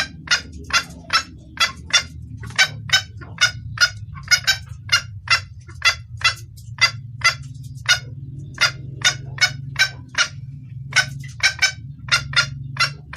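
Female junglefowl calling: a rapid series of short, clucking calls, about two to three a second, pausing briefly twice. This is the hen's call that draws a cock, used as a lure sound for trapping males. A steady low hum runs underneath.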